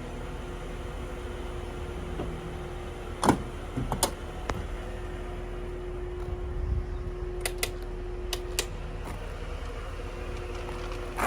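1995 Mercedes-Benz E320 Cabriolet's power soft-top mechanism operating: a steady electric pump hum with a series of sharp clicks and clunks.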